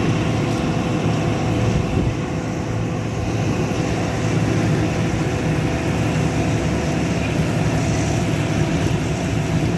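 Combine harvester running steadily while harvesting wheat: a constant engine and machinery drone with a thin steady whine above it.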